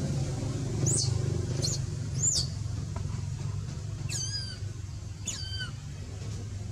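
Baby monkey crying: three short, high squeaks falling in pitch, then two longer falling cries, over a steady low hum.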